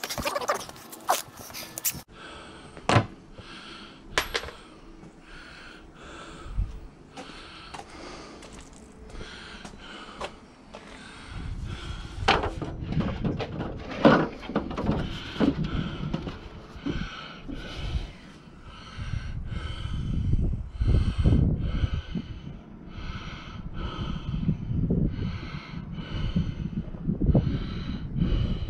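A man breathing hard in quick, even puffs while working on a ladder, over a low rumble of handling noise. A few sharp wooden knocks from lumber being handled come in the first few seconds.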